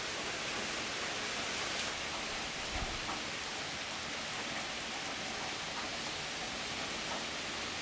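Steady rain falling, an even hiss with scattered faint drip ticks. A brief soft low thump comes nearly three seconds in.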